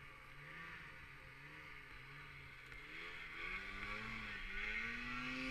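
Snowmobile engine running, its pitch wavering at first and then climbing steadily over the last two seconds as it speeds up and grows louder.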